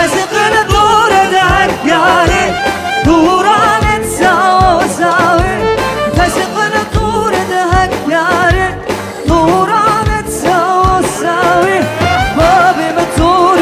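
Song with a singer's voice, held and ornamented notes, over a steady drum beat.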